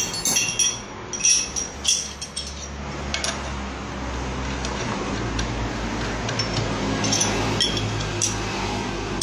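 Metal tool pieces of a crankshaft bearing puller clinking and ringing against each other as they are handled, several sharp clinks in the first few seconds. Then a steady low rushing noise with a hum carries on to the end.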